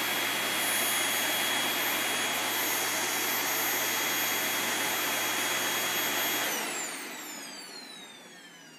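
Vacuum cleaner running steadily with a high whine, then switched off about six and a half seconds in, its motor winding down in a falling whine as it coasts to a stop.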